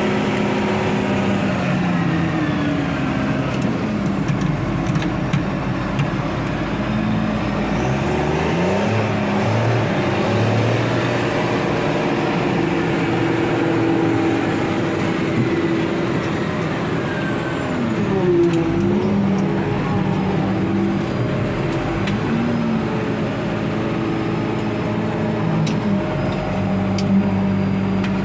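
Farm tractor engine running under load during silage work, its revs dipping and recovering several times, most deeply about two-thirds of the way through.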